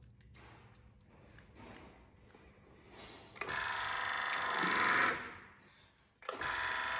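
Grinding wheel of a band saw blade welder working a steel blade in two bursts of about two seconds each: a steady whine with a rasp, the first fading out over about a second, the second starting suddenly near the end.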